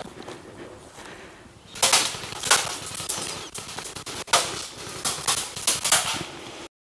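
Airsoft guns firing single shots: a string of sharp, irregular cracks starting about two seconds in, then the sound cuts off abruptly near the end.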